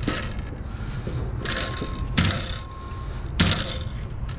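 Handling noise at a truck's glass rack: a few short bursts of scraping and rustling with light knocks as tie-down straps and rope are worked around large glass panes, over a steady low rumble.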